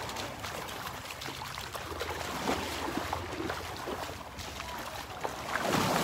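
Calm, shallow Gulf of Mexico seawater lapping and sloshing lightly, a soft rushing with many small splashes, a little louder near the end.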